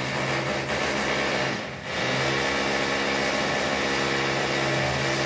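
A small electric motor running steadily with a constant pitch, easing off briefly about two seconds in and then picking up again.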